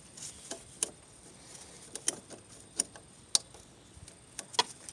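A handful of sharp, irregularly spaced clicks as pliers grip and squeeze the spring hose clamps on the throttle body's hoses.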